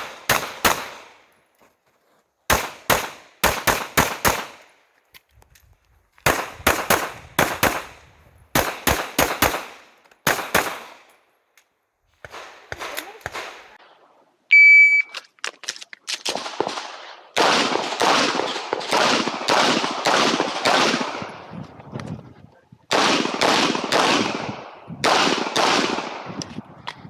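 Glock 17 9 mm pistol fired in quick strings of two to four shots with short pauses between. About halfway through, an electronic shot timer beeps once, a single steady high tone and the loudest sound here. Longer, denser runs of rapid shots follow it.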